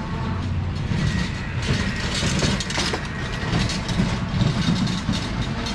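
A steady low rumble of a nearby engine and street traffic, with quick clicks and crackles of crisp fuchka shells being broken open and filled, thickest around the middle.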